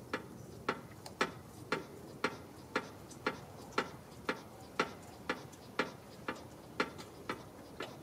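Driver's-side front suspension of a 2002 Honda Civic knocking as the car body is rocked up and down by hand, about two sharp knocks a second. The knock comes from a broken front lower control arm.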